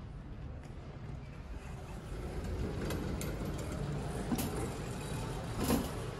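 Wire shopping cart rolling over a concrete floor: a steady low rumble that grows louder after about two seconds, with a few sharp rattles, the loudest near the end.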